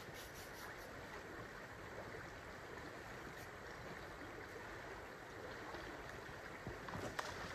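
River water flowing steadily over a shallow gravel bed: a faint, even rush, with a few light clicks near the end.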